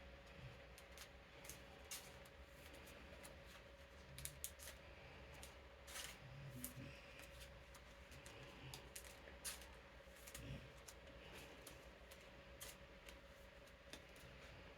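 Faint crinkles and ticks of plastic card sleeves being slid onto game cards and handled, over the steady hum of an electric fan.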